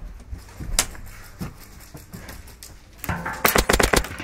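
Airsoft rifle firing a rapid full-auto burst about three and a half seconds in, after a few faint clicks.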